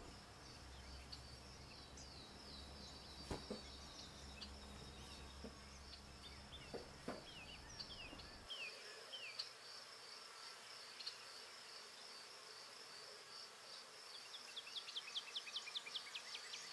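Faint outdoor ambience of insects: a steady, high, slightly pulsing trill, with scattered short falling chirps and a quick run of descending chirps near the end.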